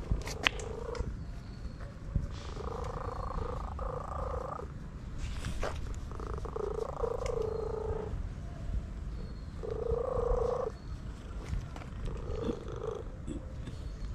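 A cat giving four drawn-out, even-pitched calls, each lasting one to two and a half seconds, with a few sharp clicks near the start.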